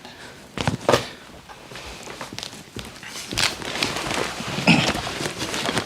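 Scuffling of a struggle on a floor: a couple of sharp knocks just under a second in, then a dense, growing run of scrapes, clicks and knocks from about three seconds in.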